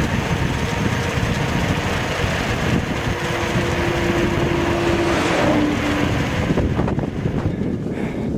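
Wind rushing over the microphone of a camera carried on a moving bicycle. An oncoming car passes about five seconds in, its hum dropping in pitch as it goes by.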